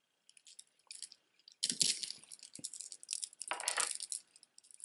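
Costume jewelry being handled: metal beads and chains clicking and rattling against each other in quick clusters, with two louder spells of jingling around the middle.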